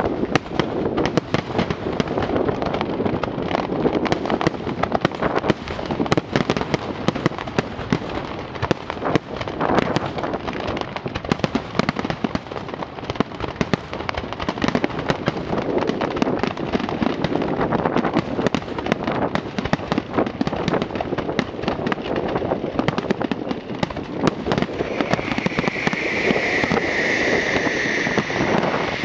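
A fireworks display: a continuous barrage of rapid bangs and crackling, with a higher-pitched hissing band rising above it in the last few seconds.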